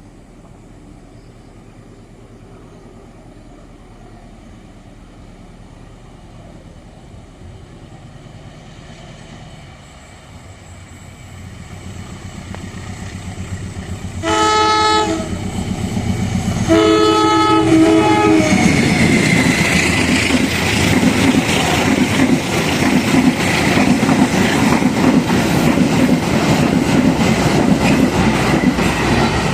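A diesel-hauled passenger train approaches, its locomotive sounds two horn blasts, the second longer, then passes close by with a loud engine rumble and rapid clickety-clack of wheels over the rail joints.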